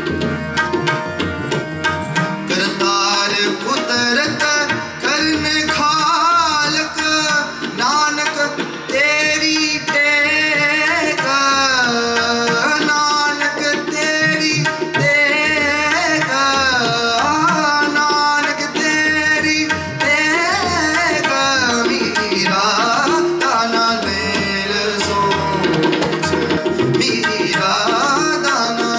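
Indian-style music with tabla drumming under a continuous, gliding melody.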